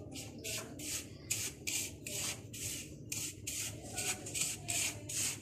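A hand mixing dry powdered milk, flour and baking powder in a plastic bowl: repeated rubbing, scraping strokes of fingers through the powder against the bowl, about three a second.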